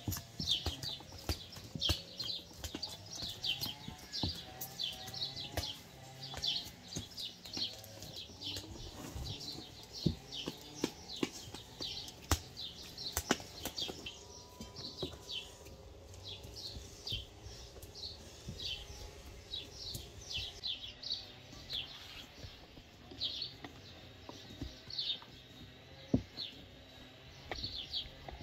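A small bird chirping over and over, a short high note that drops in pitch, about two or three times a second, with scattered light knocks and taps.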